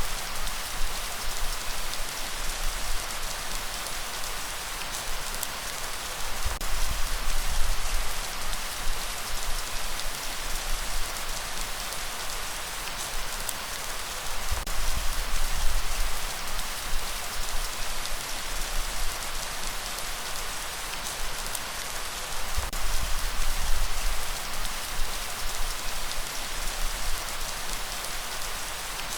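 Light rain falling steadily in an even hiss, with a low rumble underneath that swells and fades roughly every eight seconds.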